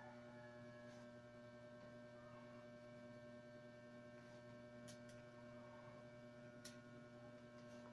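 Near silence with a steady electrical mains hum and a few faint clicks about five and seven seconds in.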